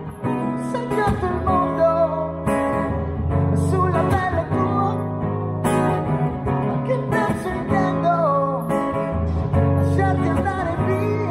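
Acoustic guitar strummed steadily with a man singing a melody over it, in phrases of a few seconds.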